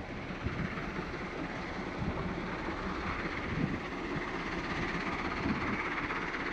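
Diesel engines of a Caterpillar 972M XE wheel loader and a Scania dump truck running at work, a steady heavy-machinery rumble as the loader moves up to the truck with a raised bucket of gravel.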